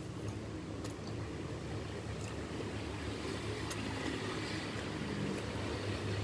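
Quiet eating from a bowl of meatball soup: a few faint clicks over a steady low hum.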